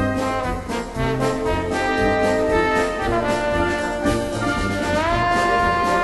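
Brass band music with a steady beat and sustained horn notes; a brass line slides upward about five seconds in.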